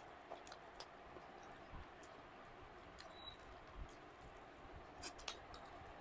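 Faint eating sounds: a few scattered soft clicks and smacks of chewing and handling food, over a quiet room.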